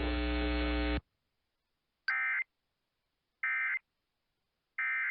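Emergency Alert System end-of-message signal: three short warbling digital data bursts (SAME code) about a second and a half apart, ending the required monthly test on NOAA Weather Radio. Before them, a steady hum cuts off about a second in.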